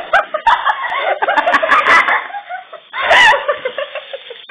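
Young children's high-pitched voices giggling and squealing in short gliding bursts, with no words.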